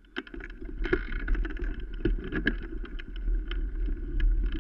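Mountain bike rolling fast over a bumpy grass trail: a steady low rumble with frequent irregular rattles and knocks as the bike jolts over the ground, with some wind on the microphone.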